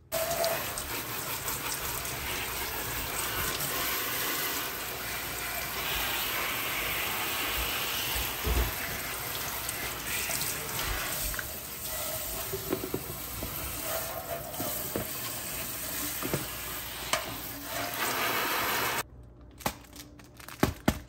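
Kitchen faucet spraying water over a rubber plant's leaves and into a stainless steel sink as the plant is rinsed: a steady rush of water that cuts off suddenly near the end, followed by a few light knocks.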